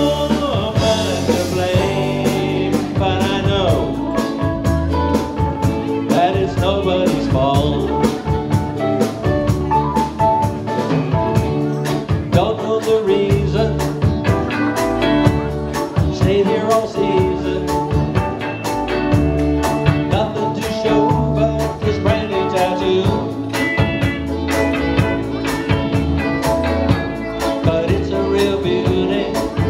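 Live band playing blues-rock: electric guitars over a steady drum beat and bass line, with singing.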